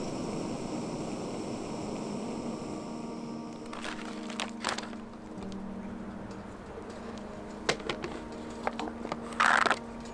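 Soft background music of held notes, over a steady rushing noise in the first few seconds. From about four seconds in come scattered clicks and knocks, with a short, louder rustling burst near the end.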